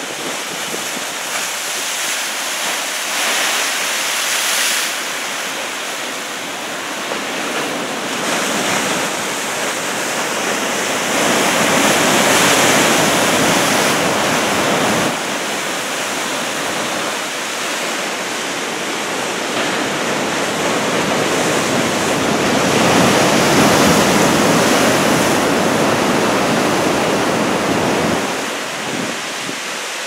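Heavy surf from a typhoon swell breaking and washing in, mixed with wind buffeting the microphone. The rushing noise swells louder twice, near the middle and again later, each time dropping off abruptly.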